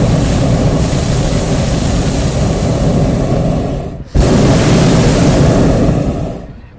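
Hot-air balloon's propane burner firing close by: a loud steady blast that stops for a moment about four seconds in, then fires again and dies away shortly before the end.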